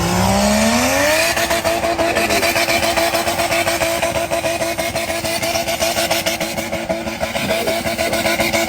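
An off-road vehicle's engine revs up quickly over about a second, then is held at high revs, with a brief dip about three-quarters of the way through.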